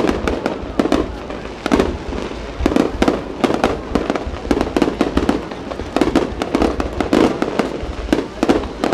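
Fireworks display: aerial shells bursting overhead in a rapid, irregular string of sharp bangs, several a second, with no pause.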